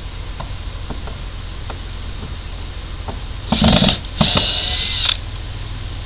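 A shovel blade scraping into gravel twice about halfway through, first a short scrape and then a longer one of about a second, with a faint metallic ring in the second.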